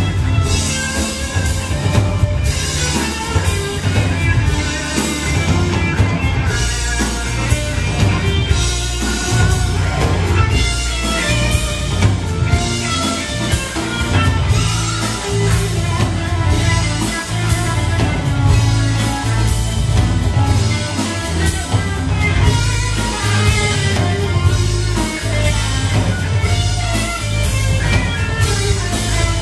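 Live rock band playing an instrumental passage: electric guitar lines over a steady bass guitar and drum kit.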